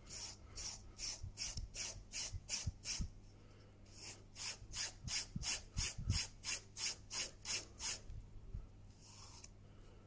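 Blade of a Stanley folding pocket knife being honed on a flat sharpening plate: quick, light scrapes back and forth, about four a second. There is a short pause about three seconds in, and the strokes stop a couple of seconds before the end.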